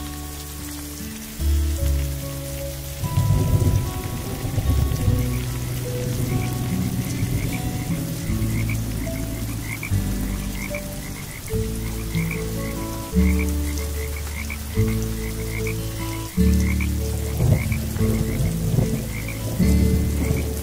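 Frogs croaking in low calls about a second long, one after another, over steady rain that grows heavier about three seconds in. A faster, high chirping repeats a few times a second behind them.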